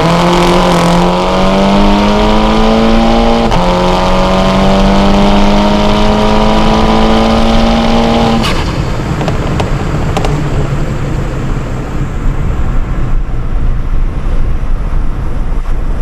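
Car engine and exhaust under hard acceleration. The pitch climbs steadily, drops at an upshift about three and a half seconds in, and climbs again. At about eight and a half seconds the throttle lifts with a sharp crack, leaving a lower, steady drone.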